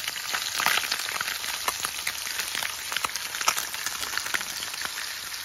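Blackened crappie fillets frying in melted butter in a cast iron skillet: a steady sizzle with frequent small crackles and pops.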